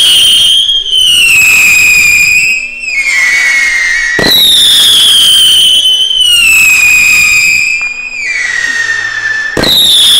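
Whistling fireworks climbing one after another. Each gives a loud, long whistle that falls steadily in pitch over about four seconds, over a crackling hiss. One is already sounding, a second starts about four seconds in, and a third starts near the end.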